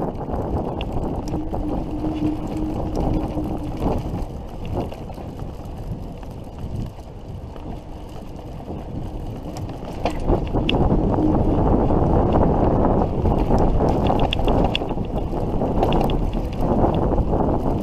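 Wind rushing over the microphone of a camera worn while riding an electric bicycle, with tyre and bike noise and small rattling clicks underneath. The rush grows louder about ten seconds in.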